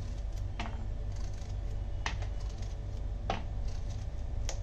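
Kitchen knife slicing a bottle gourd into rounds: four separate knocks of the blade, about a second and a bit apart, over a low steady hum.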